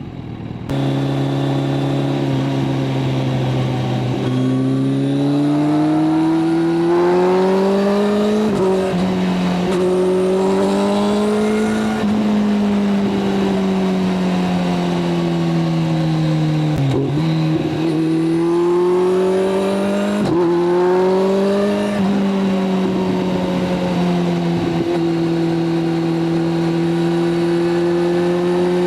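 Kawasaki inline-four motorcycle engine running hard at speed. Its pitch climbs and then drops back sharply several times as it shifts and eases off, and holds nearly steady near the end.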